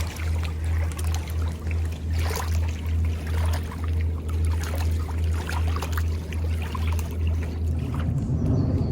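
Small waves lapping and splashing at the lake's edge, over a low, pulsing hum that stops about eight seconds in as a broader low rumble begins.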